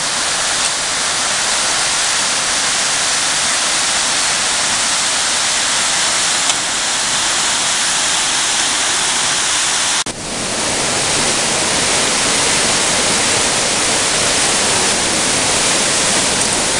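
Mountain stream running very high, rushing as whitewater and waterfalls through a rocky gorge: a loud, steady roar of water. About ten seconds in it cuts out for an instant and comes back fuller and deeper.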